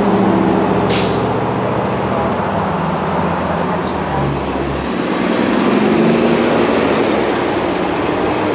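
Vehicle engines running as cars creep through a drive-thru line, with a brief sharp hiss about a second in.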